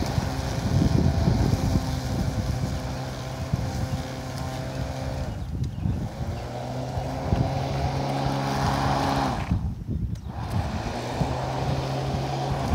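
Corded electric lawn mower motor running with a steady hum. It sags and spins back up about five seconds in, and cuts out for about a second near ten seconds before starting again.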